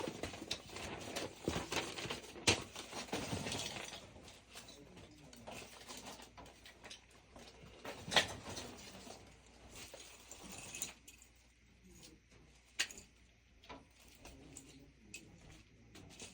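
Scattered light clicks, taps and rustling of hands working on furnace parts and wiring during reassembly, busier at first and then sparser, with a few sharper clicks along the way.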